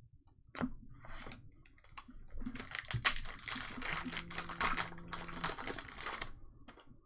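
Trading-card foil pack wrapper being torn open and crinkled, a dense crackling that runs for about four seconds after a few scattered clicks. A faint steady low hum sits under it for a moment near the middle.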